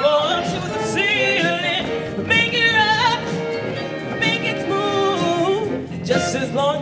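Show choir singing with instrumental accompaniment: several voices holding and sliding through wordless sung lines with vibrato.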